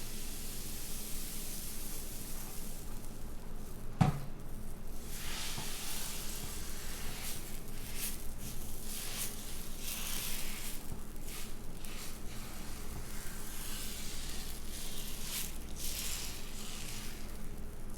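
Sizzling on a hot griddle, swelling and fading irregularly, with a single sharp knock about four seconds in.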